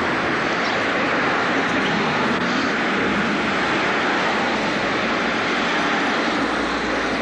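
Street traffic: a steady rushing noise of cars on the road, with a deeper rumble from about halfway through as cars pass close by.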